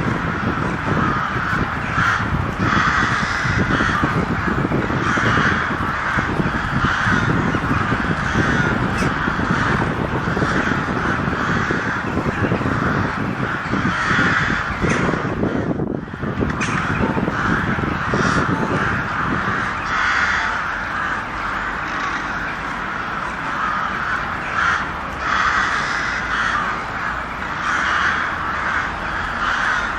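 A flock of crows cawing loudly and almost without pause, many calls overlapping, with a brief break about halfway. A low rumble runs underneath and fades about two-thirds of the way through.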